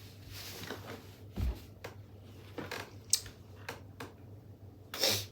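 Small objects being handled: scattered light clicks and knocks, a low thump about one and a half seconds in, and a short rustle near the end.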